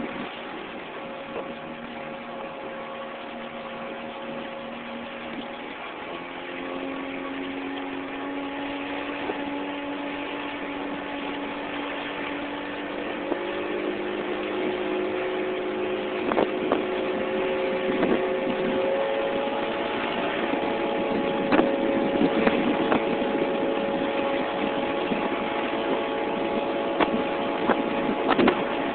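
Small open boat's outboard motor running under way, its pitch rising in a few steps and growing louder as it speeds up, with a few short knocks.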